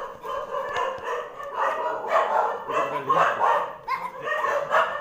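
Several Kintamani dogs barking and yelping over and over.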